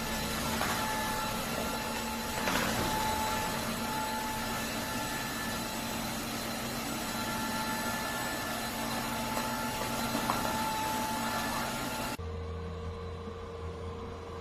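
Cordless wet-dry vacuum mop running steadily, a whirring motor hiss with a faint whine. It cuts off abruptly about twelve seconds in, leaving a low hum.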